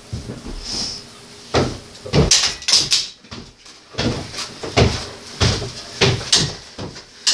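Irregular knocks and clatter of tools and parts being handled on a bicycle, a few sharp hits every second from about a second and a half in.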